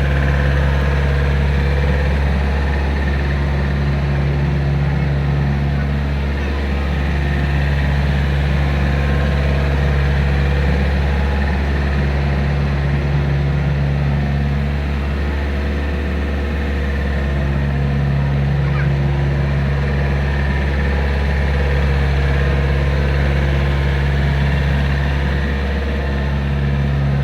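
Komatsu PC40 mini excavator's diesel engine running steadily, with a few brief dips in its note.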